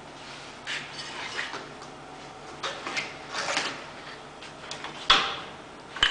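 Parts of an aluminium knife-making belt grinder being handled and fitted back together: a string of light knocks and sliding clunks, with one sharper clank about five seconds in.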